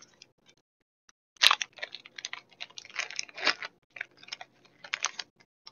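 A foil Pokémon TCG booster pack is torn open with a sharp rip about a second and a half in. Crinkling and crackling of the foil wrapper follow as it is handled, stopping shortly before the end.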